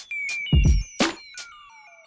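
Electronic music: a few drum hits, the last about one and a half seconds in, under a high synth line of short notes stepping downward that fades away after the drums stop.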